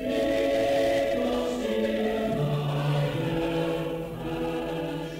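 A choir singing a slow tune in harmony, holding long notes that change every second or so.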